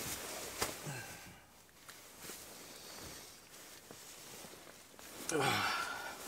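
Rustling of a nylon down sleeping bag as a person stirs and wakes inside it, with a few soft clicks, then near the end a long waking yawn whose pitch falls.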